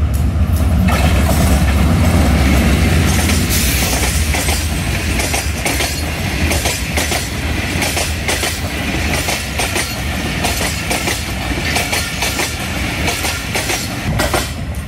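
Diesel-hauled passenger train passing close by on the adjacent track, over a deep steady engine drone. From about halfway through, the coaches' wheels clatter rhythmically over the rail joints.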